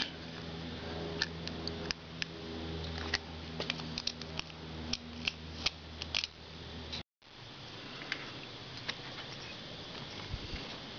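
Irregular sharp metallic clicks and ticks as a wire circlip is worked around the gudgeon pin bore of a Harley-Davidson Evolution Sportster piston, over a steady low hum. The clicks come thick for about seven seconds, the sound cuts out for a moment, then only a few clicks follow.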